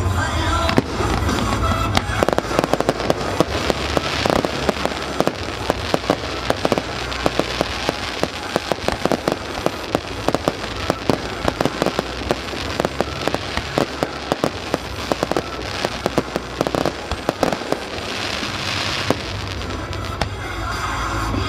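Fireworks display: a dense run of sharp crackling pops and bangs from bursting shells, from about two seconds in until near the end, with music in the background.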